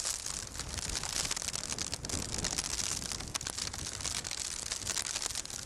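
Heavy sleet ticking and hissing against the camcorder and clothing in a dense stream of tiny clicks, with wind rumbling on the microphone.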